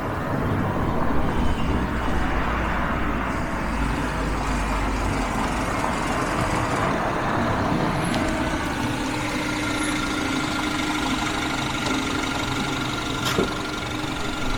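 Peugeot RCZ's 1.6-litre turbocharged four-cylinder petrol engine running. It is loud and rough with a heavy low rumble for the first half, then settles to a steady hum from about seven seconds in, with a sharp click near the end.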